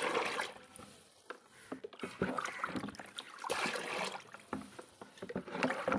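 Water poured from a plastic jug into a bucket of leftover dal and pickle, splashing and sloshing in several short spells.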